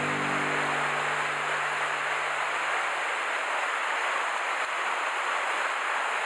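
Steady rush of a small cascade in a mountain stream running high after rain. The tail of background music fades out over the first two seconds.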